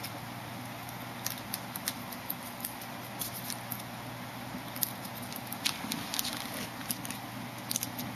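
Light, irregular clicks and taps of a plastic floss pick being batted and scraped across a hard tile floor by a kitten's paws, in small clusters, over a steady low hum.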